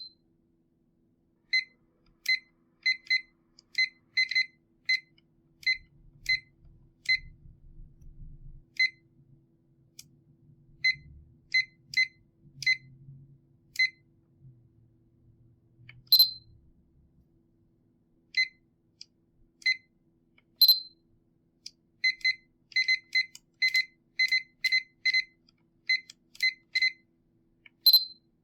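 Short high electronic beeps from the Sony Vaio laptop's jog dial as the wheel is turned and pressed, coming in irregular quick runs with pauses between. A few louder sharp clicks stand out among them.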